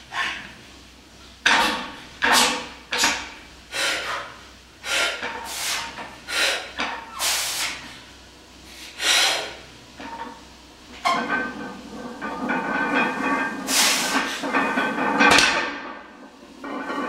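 A weightlifter taking a series of sharp, forceful breaths, about nine of them, while bracing over a heavily loaded barbell before a conventional deadlift. From about two-thirds in, the breaths give way to one longer, continuous breathy sound.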